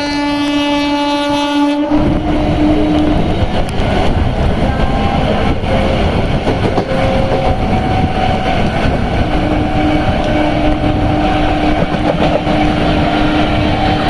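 An EMU local train's horn sounds a steady note. About two seconds in, the loud rushing rumble and track clatter of the electric multiple unit running at speed cuts in. A long horn blast sounds again from about nine seconds in.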